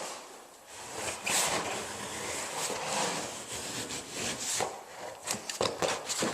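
Sheet vinyl flooring being shifted and slid across the floor: irregular rubbing and scraping, with a few sharp knocks near the end.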